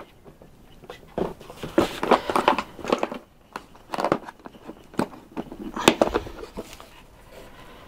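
Plastic toolbox case being closed and pressed shut by hand: a series of short clicks and knocks with light rustling between them, the loudest about six seconds in.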